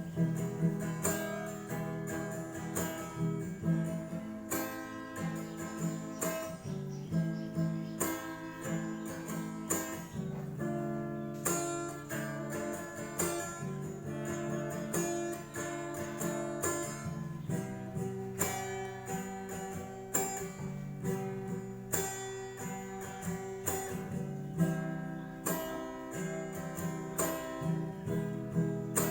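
Acoustic guitar strumming and picking chords at an even pace, an instrumental break in the song with no singing.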